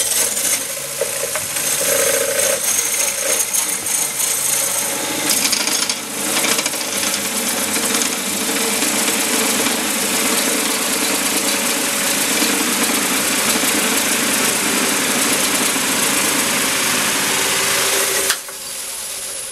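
Curved Korpro coring knife on a Oneway coring system cutting deep into a wooden bowl blank spinning on a lathe: a loud, steady cutting noise as chips stream out, with the core close to parting from the blank. The cut drops away suddenly a little before the end.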